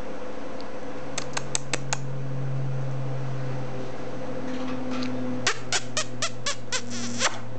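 Two quick runs of sharp clicks over a steady background hum: five within about a second, then eight more at about four a second near the end.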